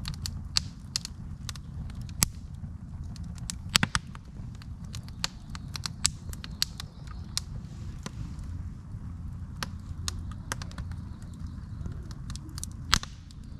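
Split-wood campfire crackling: irregular sharp pops, a few louder ones about 2 and 4 seconds in and near the end, over a steady low rumble.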